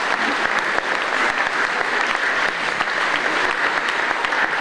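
Theatre audience applauding steadily, a dense even clapping.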